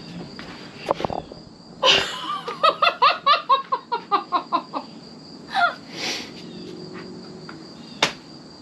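A woman bursting into surprised laughter: a sudden start about two seconds in, then about a dozen quick ha-ha pulses lasting around two seconds, with a falling cry shortly after.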